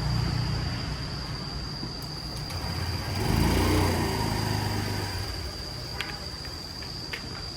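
A motor vehicle engine running, swelling and changing pitch about three seconds in, then fading.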